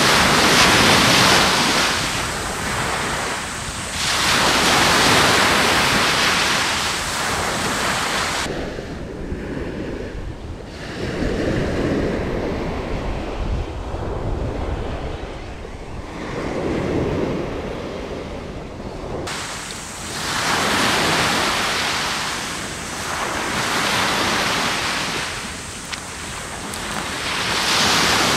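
Surf breaking on a sand and pebble beach, swelling and falling every few seconds, with wind buffeting the microphone. For about ten seconds in the middle the sound is muffled, the hiss of the surf dulled.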